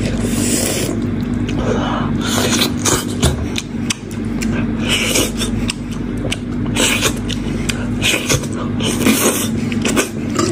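Close-up eating sounds: braised sheep-head meat pulled apart by hand, then gnawed and sucked off a jaw bone, in irregular short wet bursts.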